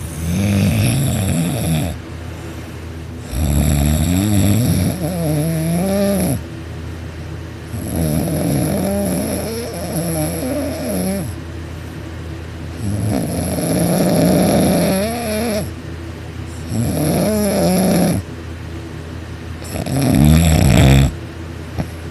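A man snoring loudly with his mouth open, his soft palate vibrating: about six long, rattling snores of one to three seconds each, their pitch wavering up and down, with short pauses between breaths.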